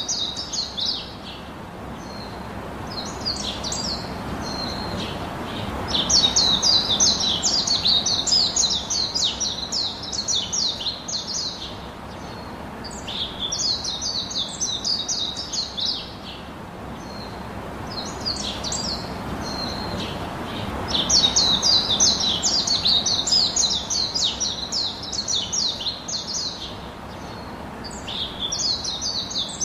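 A small bird singing in bouts of rapid chirps, each a few seconds long and coming again every few seconds, over a soft background rush.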